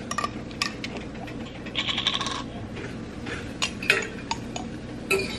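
Light clicks and clinks of a glass salsa jar and its lid being handled, with a short rattling run about two seconds in and a few sharper clicks near the end.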